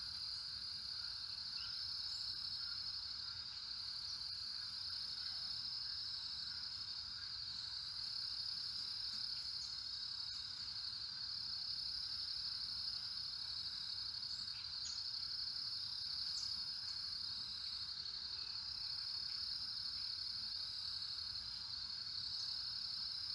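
A steady, high-pitched chorus of insects that runs on unbroken, with a few faint short chirps scattered over it.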